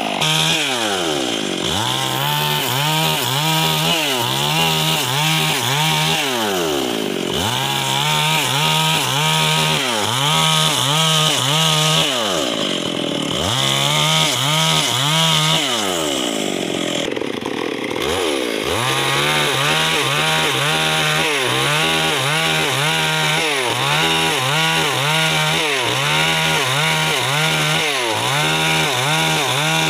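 Stihl MS 382 two-stroke chainsaw ripping lengthwise along a plank at high revs. The engine pitch dips and recovers every second or two as the chain bites into the wood. A few times it falls away much lower and then revs back up.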